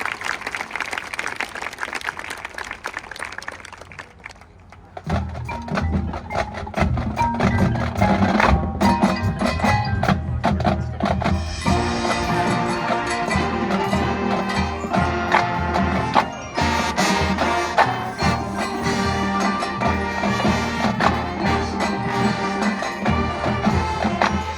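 Applause dies away over the first few seconds, then about five seconds in a marching band comes in, playing loud, rhythmic music with sustained low notes and sharp percussion strikes.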